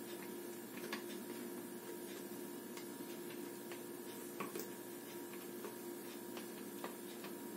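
A spatula scraping thick, mayonnaise-like garlic sauce out of a blender jar: faint, irregular clicks and taps, about one a second, over a faint steady hum.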